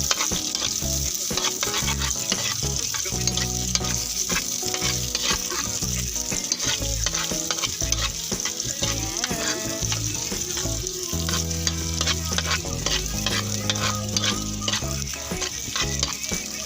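Garlic and onion sizzling in hot oil in a pan as they are stirred, with frequent clicks and scrapes of the stirring utensil against the pan.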